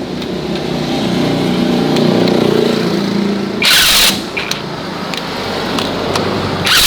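A farm vehicle's engine running, its pitch rising for a few seconds and then falling back. Two short, loud hissing bursts come about four seconds in and again near the end.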